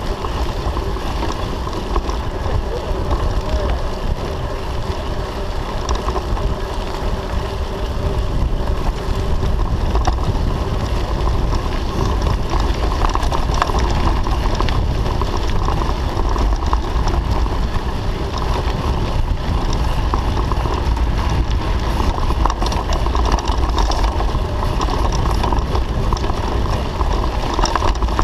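Wind buffeting the microphone of a bicycle-mounted camera while riding, with the rumble of bicycle tyres on a dirt road. Steady, a little louder from about eight seconds in.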